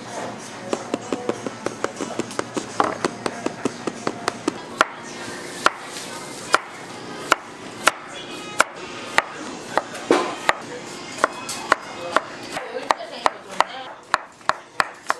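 Knife chopping on a wooden cutting board: a fast run of strikes, then steady single chops, then quicker chops again near the end.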